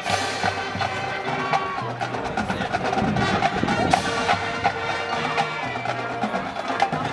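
Marching band playing: brass and woodwinds sound sustained notes over many sharp percussion strikes.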